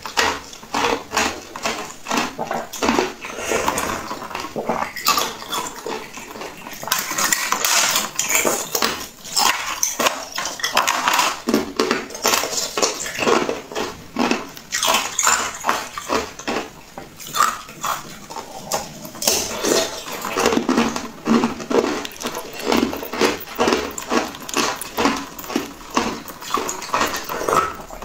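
Close-miked ASMR eating sounds of a green jelly dessert being bitten and chewed: a dense, uneven run of short sharp clicks and mouth smacks.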